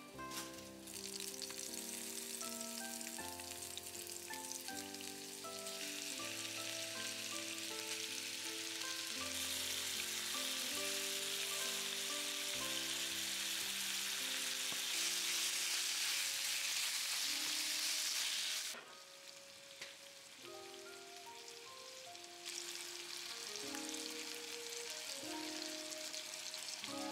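Chicken thigh pieces and green onion sizzling as they fry in sesame oil in a frying pan. The sizzle swells over the first half, breaks off about two-thirds of the way through, then starts again, with background music throughout.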